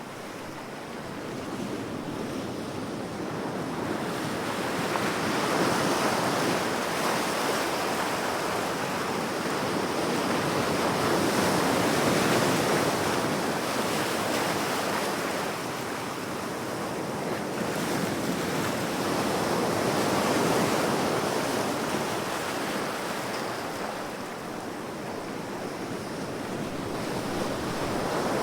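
Ocean surf: waves washing in and out, the rushing noise swelling and easing every several seconds.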